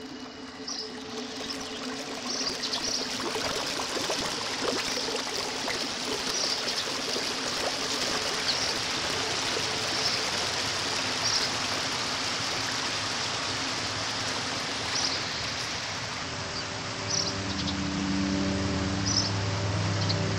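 Field recording of a stream, a steady wash of running water, with short high chirps scattered through it. Near the end, low held tones of an ambient drone come in underneath.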